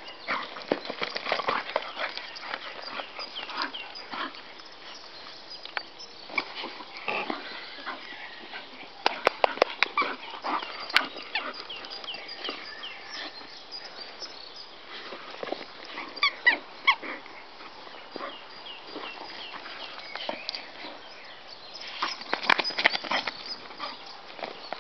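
Bull terrier playing with a Kong Wubba tug toy, its own noises mixed with the sounds of the toy being mouthed and shaken. They come in several bursts of short sharp sounds, the busiest about nine seconds in, again around sixteen seconds and near the end.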